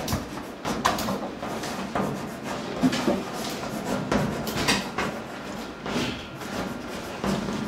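Chalk scratching and tapping on a blackboard as words are written, in short irregular strokes.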